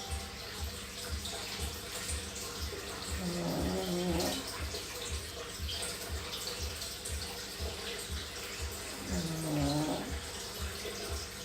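Sleeping puppy snoring, with two drawn-out, wavering snores about a second long, one about three seconds in and one about nine seconds in. Under them runs a steady hiss and a low pulse repeating about twice a second.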